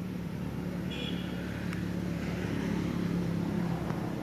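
A motor vehicle's engine running at a steady low hum, with a short high chirp about a second in.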